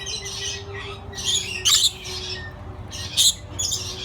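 Several parrots squawking, a run of short, harsh, high calls every second or so.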